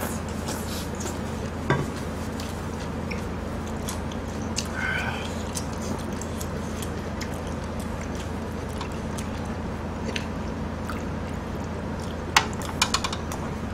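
Eating sounds at a table: faint chewing and scattered light clicks of utensils against food containers, with a few sharper clicks near the end, over a steady low hum.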